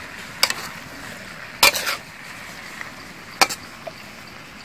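Metal spatula clanking and scraping against a steel wok while stir-frying snail meat: three sharp clanks, the middle one a quick run of strokes, over a steady low hiss.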